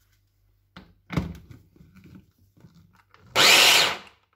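A knock about a second in, then an electric mini chopper's motor runs in a short loud burst of under a second near the end, pulsing to blend pancake batter of banana, milk and flour.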